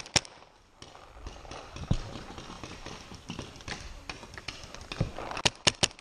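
Paintball marker firing: a last shot, then scuffing movement and footsteps with a thud about two seconds in, then from about five and a half seconds in a rapid string of sharp pops, about six a second.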